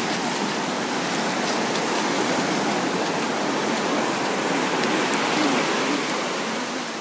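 Steady wash of ocean surf on a beach, an even, unbroken rushing noise.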